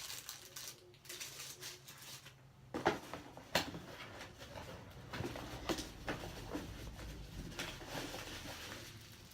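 Camera-kit packaging being handled: rustling with scattered sharp clicks and taps, the loudest about three and a half seconds in, as parts are lifted out of the box.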